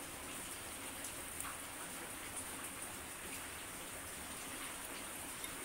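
Refined vegetable oil poured into a hot frying pan and sizzling softly: a steady low hiss with faint scattered crackles.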